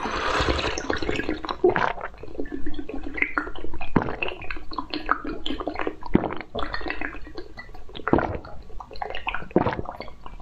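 Mouth slurping green jelly out of a glass bird-shaped cup. A loud sucking rush comes first, then a run of wet smacks, pops and squelches as the jelly is drawn out.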